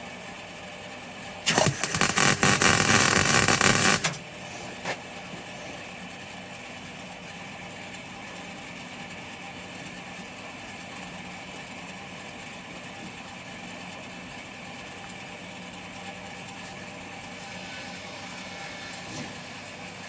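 A short burst of arc welding on 2 mm steel sheet, about two and a half seconds of harsh crackle starting a second and a half in, over a steady low hum.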